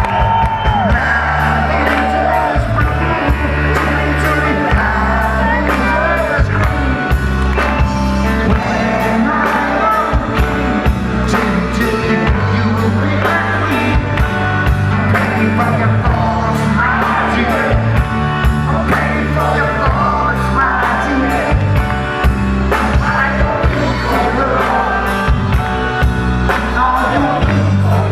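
Live rock band playing a passage without lyrics: drums keep a steady beat under bass and a wavering melodic lead line.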